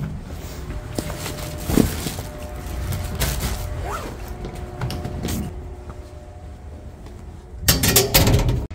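Lift running: a steady low hum with a faint steady whine, scattered clicks and knocks, and a loud rustling clatter near the end.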